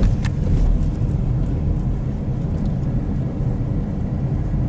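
Car driving, heard inside the cabin: steady low road and engine rumble, with two sharp knocks just at the start as the tyres go over bumpy railroad tracks.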